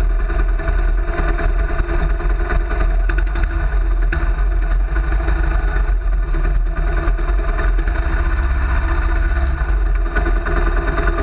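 Kawasaki KLR650's single-cylinder engine running steadily, its even firing pulses holding one speed without revving up or down.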